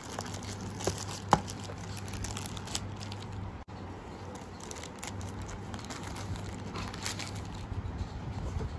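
Clear plastic wrapping crinkling and rustling as a small cardboard earphone box is worked out of it, with one sharp click about a second in.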